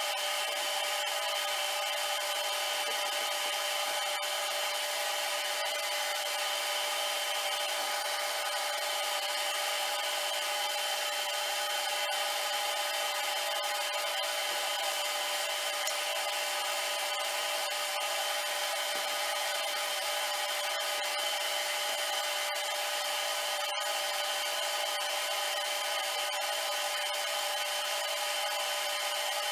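Homemade lathe running under power while a single-point tool cuts a 7/8-inch mild steel bar: a steady machining sound, several held tones over a continuous scraping hiss.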